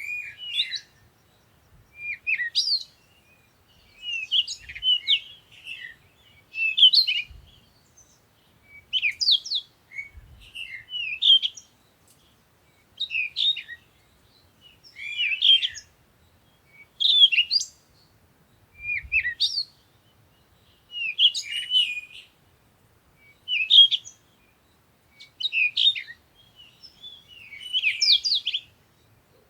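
A songbird singing a short, intricate warbled phrase about every two seconds, with brief pauses between phrases.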